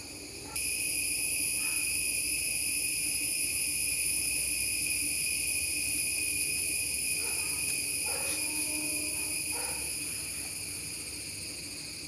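Steady, high-pitched insect trill that jumps louder about half a second in and eases off slightly near the end, with a few faint soft rustles in the second half.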